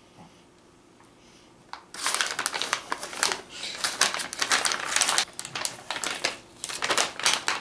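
Clear plastic beef jerky bag crinkling in rapid, irregular bursts as hands dig into it and pass it across, starting about two seconds in.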